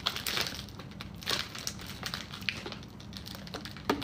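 Packaging being handled and unwrapped: irregular crinkling and rustling with small clicks, and a sharper tap near the end.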